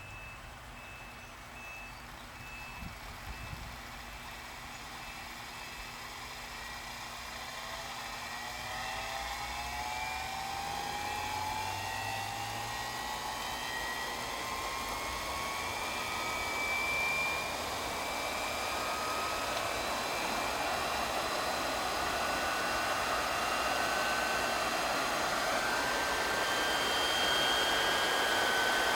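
Belt-driven ceiling fan on a vacuum cleaner motor spinning up as the voltage is raised on a variac: a motor whine that climbs steadily in pitch and grows louder, with rising air noise from the metal fan blades.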